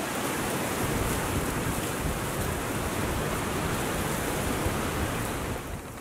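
Strong wind on the microphone: a steady rushing noise that drops off suddenly just before the end.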